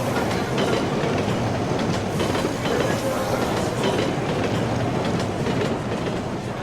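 Train sound effect of a full-size train running along the track: a steady rumble of wheels on rails with scattered clicks over the rail joints, easing off a little near the end.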